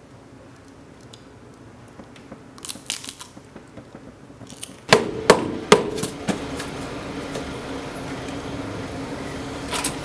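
Three sharp knocks on an apartment door in quick succession, a little after some lighter clicking. A low steady hum runs underneath after the knocks.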